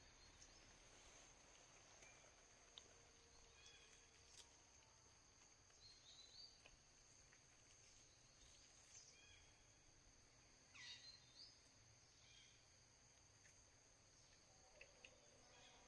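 Near silence: faint forest ambience, with a steady high insect drone and scattered short bird chirps, a small cluster of them about eleven seconds in.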